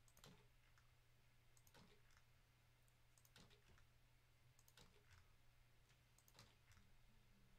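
Faint computer clicks while pasting into a spreadsheet, about one every second and a half, over a faint steady low hum.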